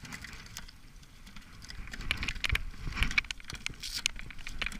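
Gloved hands rummaging in a small fabric bag: rustling with a scatter of small clicks and taps, busier from about a second and a half in.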